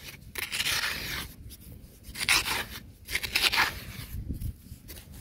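A bare hand scraping and scooping dry, crumbly soil out of a small hole, in about three main strokes roughly a second apart.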